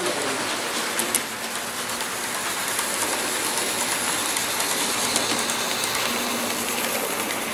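Model train of green hopper wagons rolling past behind a small yellow locomotive: a steady whirr of wheels on the rails with light clicks.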